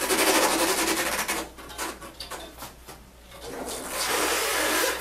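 Sneakers scraping and shuffling on a hard floor as a person in full-leg braces (knee-ankle-foot orthoses) pivots through a turn. There are two stretches of rough scraping, the first for about a second and a half and the second starting near the end, with a quieter gap between them.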